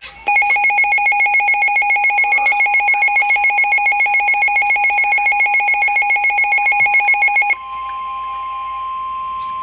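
Weather alert radio sounding a warning: a loud, rapidly pulsing electronic alert beep, about seven pulses a second, then about seven and a half seconds in it changes to a single steady tone near 1 kHz, the NOAA Weather Radio 1050 Hz warning alarm tone that comes before a warning message.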